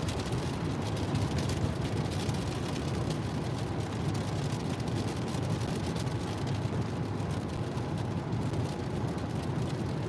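Steady driving noise inside a car on a wet highway: tyres running on the rain-soaked road and the engine, with raindrops ticking on the windshield.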